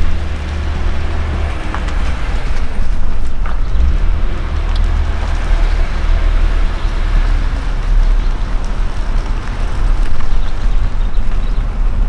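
Steady engine and road noise of a vehicle driving slowly, heard from inside the cabin: a low rumble with a broad hiss of tyre noise over it.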